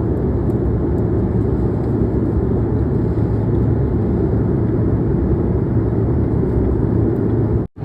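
Steady low cabin noise of an airliner in flight, heard from a passenger seat: an even roar with a low hum in it. The sound cuts out for an instant near the end.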